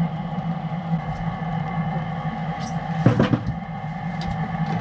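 Boat's outboard motor idling steadily, with a short clatter about three seconds in.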